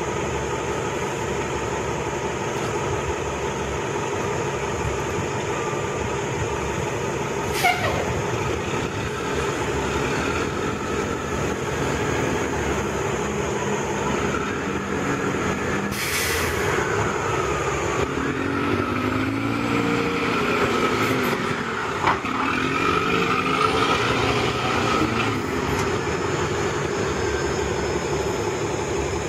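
New York City Transit bus engine running steadily as the bus pulls away, with a sharp air-brake hiss about halfway through. A few seconds after the hiss, the engine note slides up and down as it accelerates.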